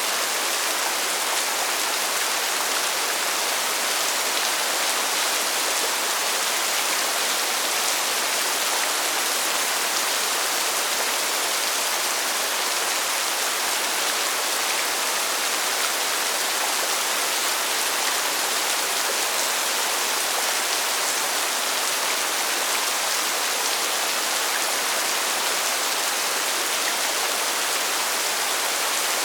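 Rain falling steadily, an even hiss that stays at the same level throughout with no breaks.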